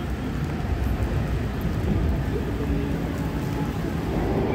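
Steady rain noise with a low rumble underneath.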